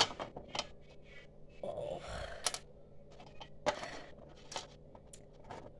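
Small plastic toys and accessories clicking and tapping as they are handled and set down on a toy barn floor: a handful of separate sharp clicks spread through, with a short rustle about two seconds in.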